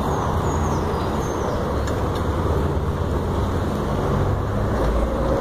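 Steady wind noise rushing over a phone microphone while riding a bicycle, a continuous low rumbling hiss with no clear engine or tone.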